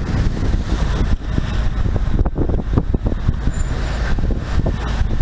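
Fishing boat running at sea: a steady low rumble of the engine mixed with wind buffeting the microphone and water rushing along the hull.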